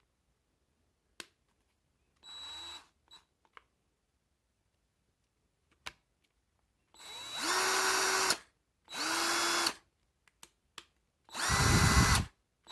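Parkside PABS 20-Li E6 20 V cordless drill run with no load in short trigger pulls: one brief pull, then three longer runs of about a second each. Each run whines up to a steady speed and cuts off, with a few clicks between them. The last run is the loudest.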